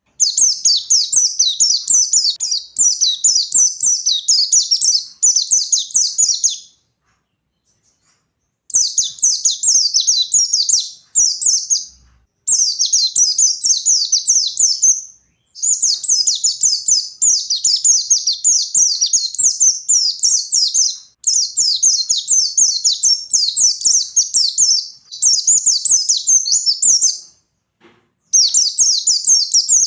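White-eye (pleci) singing in long, rapid, high-pitched twittering phrases of several seconds each, broken by short pauses. This is the energetic 'ngalas' song that sets rival white-eyes singing.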